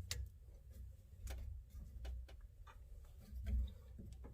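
Scattered metallic clicks of a wrench being worked on a brass air-line fitting, about six at uneven spacing, over low handling rumble.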